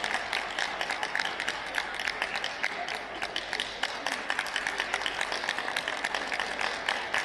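Audience applauding, many hands clapping steadily throughout.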